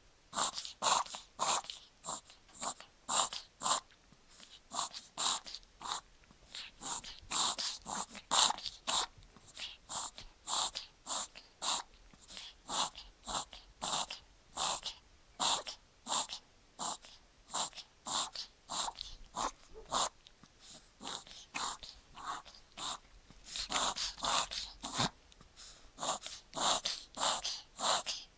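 Papillon puppy making a coughing/sneezing, congested sound: short noisy bursts repeated about two to three times a second in a long, almost unbroken run.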